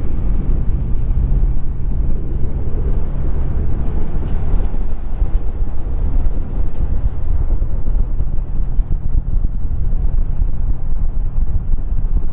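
Steady low rumble of a Ford Bronco's engine and tyres while driving, with wind buffeting the microphone.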